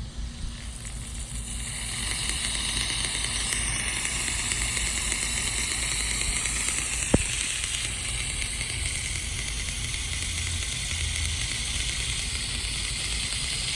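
Water spraying from a vintage Rain-O-Matic No. 10 ball-drive rotary sprinkler: a steady hiss that builds over the first couple of seconds as the water comes on. A single sharp click sounds about seven seconds in.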